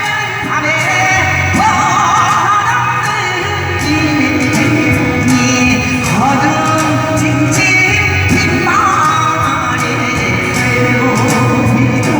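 Korean folk song (minyo) sung by a woman over backing music, the voice sliding and wavering between long held notes.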